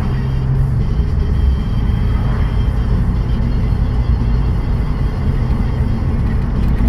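Pickup truck driving at a steady speed, a steady low engine and exhaust rumble with road noise, heard from inside the cab.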